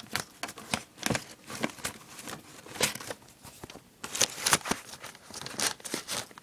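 Papers and other loose items rustling and crinkling as someone rummages through a drawer: a run of irregular short scrapes and crackles.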